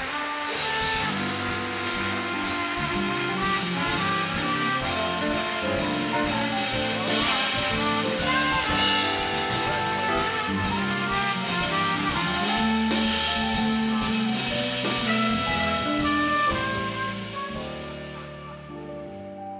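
A live dance orchestra plays an upbeat jazzy walk-on tune with a steady drum beat. It fades out near the end.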